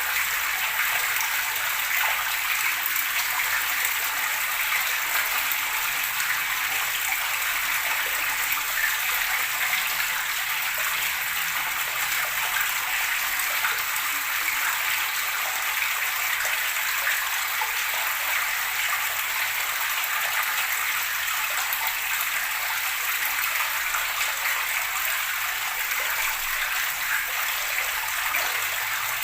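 Shallow water trickling and gurgling steadily, an even splashing hiss with no deep rumble.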